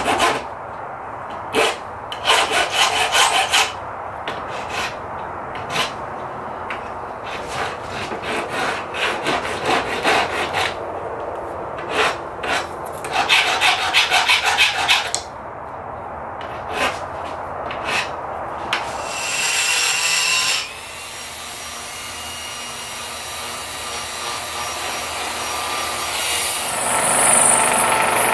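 Flat hand file rasping back and forth over stainless steel knife pin stock clamped in a bench vise, in uneven runs of strokes for about the first eighteen seconds. After a short burst of noise, a benchtop drill press motor runs steadily, getting louder near the end.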